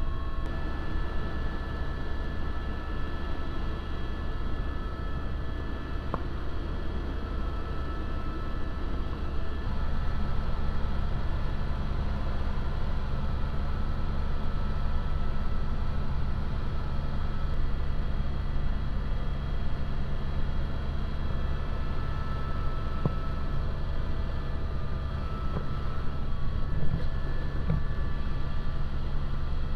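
Helicopter engine and rotor running in flight: a steady low drone with a few steady tones over it. It grows a little louder and deeper about ten seconds in.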